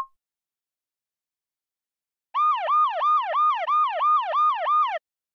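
A siren-style alarm sound effect: a rapid rising-and-falling whoop repeated about three times a second, starting about two seconds in and stopping abruptly after about two and a half seconds. A short sharp knock sounds right at the start.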